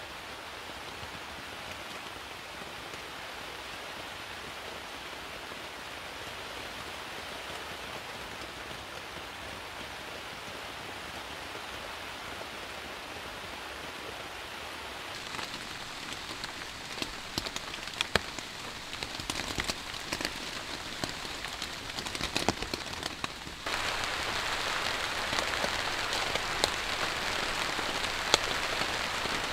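Heavy rain falling on a tarp overhead: a steady rush of rain, with single louder drops tapping on the tarp from about halfway. About three-quarters of the way through it turns abruptly louder and denser.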